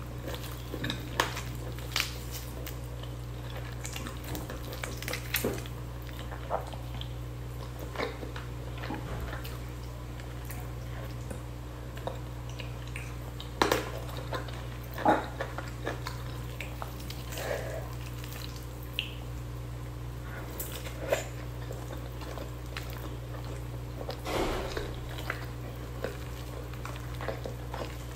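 Close-miked eating sounds: fingers pulling apart saucy cooked chicken, with wet chewing and mouth sounds. It comes as scattered small clicks and squishes, a few sharper ones in the middle, over a steady low hum.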